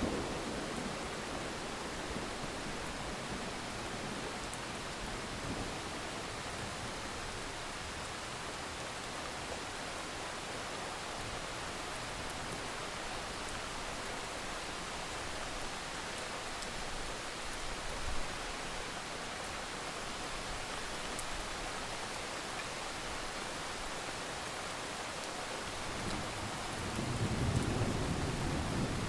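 Steady hiss of rain, with a low rumble of thunder swelling for a few seconds near the end.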